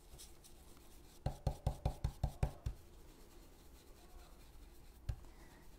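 Stencil brush working over a plastic stencil on a wooden sign board: a quick run of about eight short strokes about a second in, and one more near the end.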